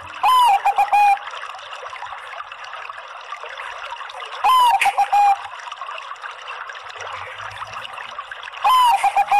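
Zebra dove (perkutut) of the Bangkok song strain cooing three times, about four seconds apart. Each phrase is a note that bends downward, followed by a quick run of short notes, over a steady hiss.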